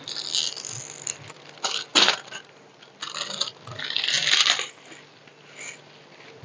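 Crinkling and rustling of a diamond painting kit's packaging and rolled canvas being handled, in several bursts, the sharpest about two seconds in, over a faint steady fan hum.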